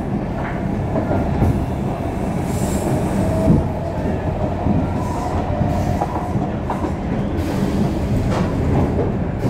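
Stockholm Metro C6 car heard from inside while running on the rails: a steady wheel-and-track rumble with a few sharp clicks over rail joints. A faint wheel squeal rises about midway.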